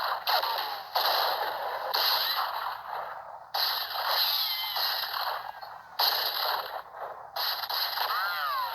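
A cowboy gun battle of Western-style gunshot sound effects: about six sharp shots with irregular gaps, each trailing off. Near the end comes a wavering ricochet whine.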